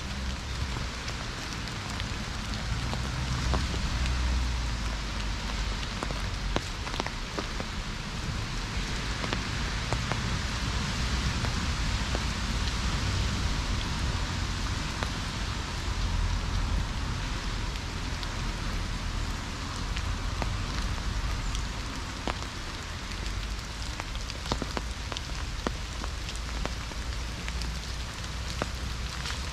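Steady patter of rain, with scattered sharper drop ticks and a low rumble underneath.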